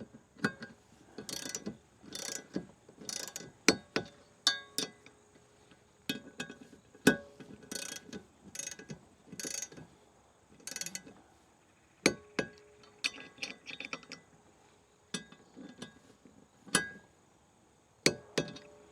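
Irregular metallic clicking and clinking of a ratchet wrench and hardware as the landing-gear bracket bolts are worked on. Sharp clicks come in uneven clusters, some with a brief ringing tone.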